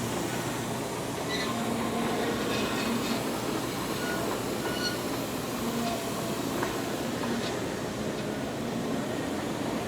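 Wellsaw 1270 horizontal band saw running: a steady mechanical hum with brief, faint squeals here and there.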